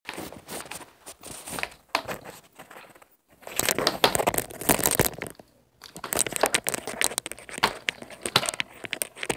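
Crinkling, rustling handling noise with many scattered clicks and scrapes as a DVD case is handled close to the microphone, in bursts with short pauses about three seconds in and again just after the middle.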